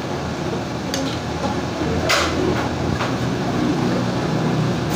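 Metal spoons scraping and clinking on dinner plates a few times, the loudest scrape about two seconds in, over a steady low background hum.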